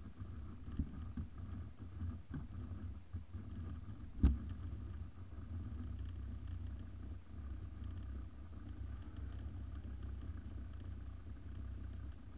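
A steady low rumble, with one sharp knock about four seconds in that is the loudest sound.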